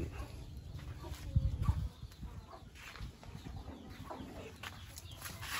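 Chickens clucking, with a brief low rumble about a second and a half in.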